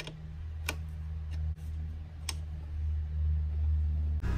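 A few sharp metallic clicks of a wrench on the throttle cable adjuster nut, over the steady low hum of the 3.4-litre V6 idling.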